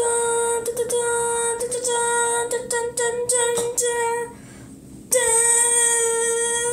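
A girl's high voice singing one long held note on the same pitch, broken into repeated syllables, with a short pause about four seconds in before the note is held again: a mock fanfare for a reveal.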